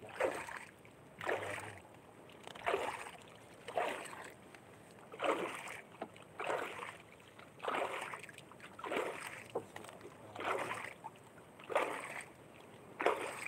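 Paddling a small outrigger canoe: a steady rhythm of paddle strokes, each a swish and splash of the blade in the water, about one every 1.3 seconds.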